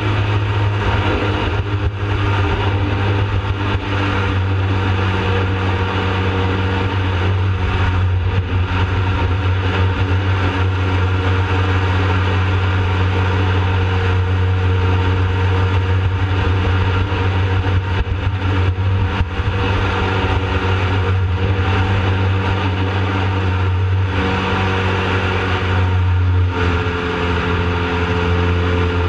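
Jet boat's engine running steadily at speed, a strong low drone with a rushing hiss over it; the engine note shifts slightly about 25 seconds in.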